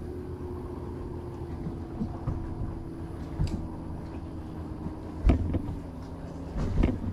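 Bass boat's bow-mounted electric trolling motor humming at a steady pitch over a low rumble, with two dull knocks about five and seven seconds in.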